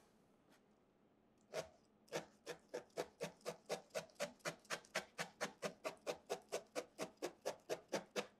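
Barbed felting needle in a pen-style holder stabbing into wool roving on a foam block: one stab about a second and a half in, then steady rhythmic stabbing at about three a second. Each stab tangles and compacts the wool fibres.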